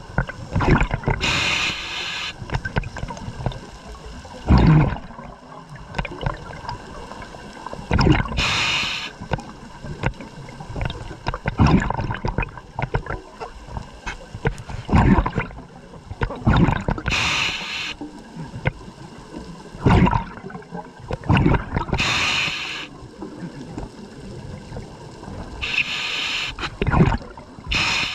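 Scuba diver breathing through a regulator underwater, a breath every four to five seconds: a hissing inhalation through the demand valve, then a gurgling rush of exhaled bubbles.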